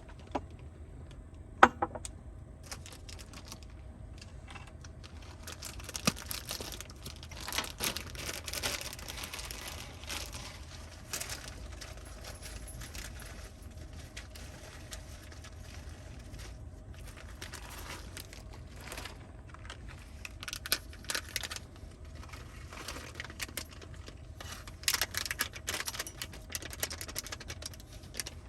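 Scattered clicks, taps and rustling of small objects being handled, busiest in two spells, with one sharp loud click near the start, over a steady low hum.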